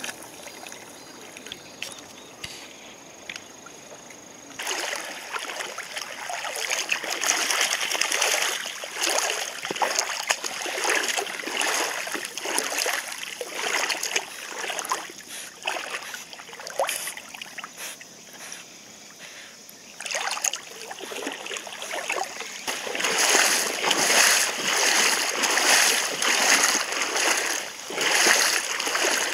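River water splashing and sloshing irregularly around swimming golden retrievers, over a steady flow of stream water. The first few seconds hold only the quieter flowing water, and the splashing is loudest near the end.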